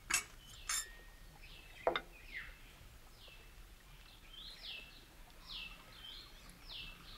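Birds calling outdoors, a run of short repeated downward-swooping chirps. Near the start come a few sharp glass clinks as drinks are served, one of them ringing briefly.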